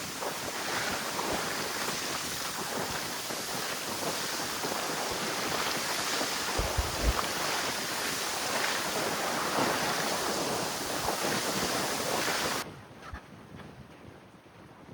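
Wind buffeting the microphone over the rush of water along a sailboat's hull, sailing close-hauled in strong wind. About two seconds before the end it cuts off abruptly to a much quieter, softer rush.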